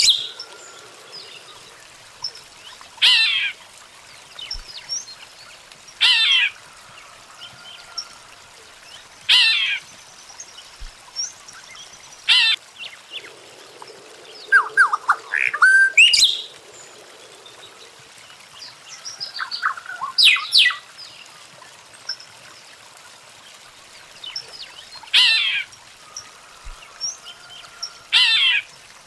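Weaver birds calling: a harsh, buzzy call that sweeps downward, repeated about every three seconds, with shorter chattering notes in between.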